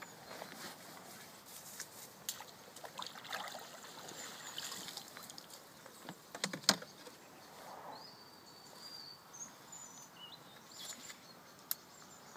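Quiet outdoor ambience with short bird chirps, and scattered small clicks and knocks from fishing tackle being handled, rebaited, cast and the reel wound in. One sharp click about halfway through is the loudest sound.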